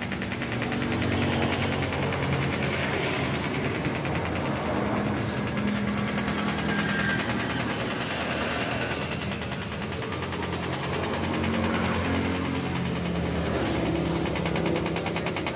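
TIG welding arc buzzing steadily on a stainless-steel motorcycle expansion chamber, with a low droning hum underneath that shifts in pitch now and then.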